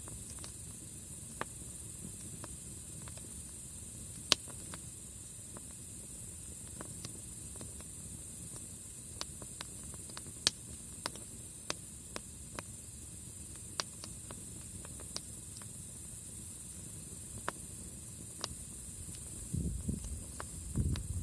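Wood campfire burning, crackling with irregular sharp pops over a steady high hiss. Near the end a brief low rumble comes in.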